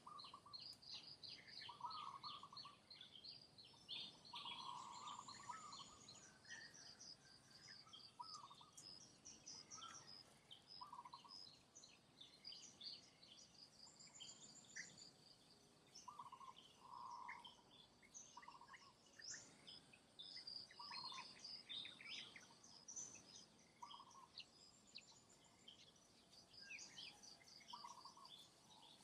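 Faint birdsong: many quick high chirps and trills, with a lower call repeated every second or two.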